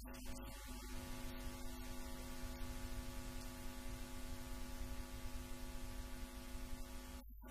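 Steady electrical hum with several even tones over a background hiss and a low rumble: mains hum and noise on the interview's audio track. It drops out briefly across nearly all pitches just before the end.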